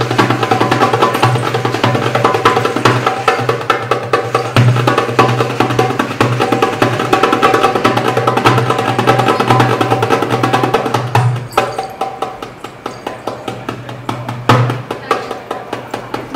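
Drums played in a fast, dense rhythm of sharp strokes over a steady low hum; the playing gets softer about three-quarters of the way through, broken by a couple of single louder strokes.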